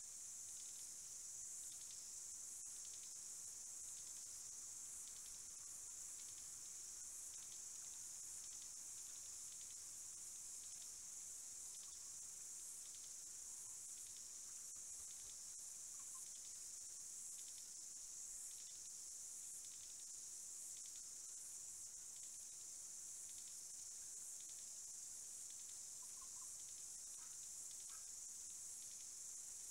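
Faint, steady high-pitched insect chorus, with a few brief faint chirps about halfway through and again near the end.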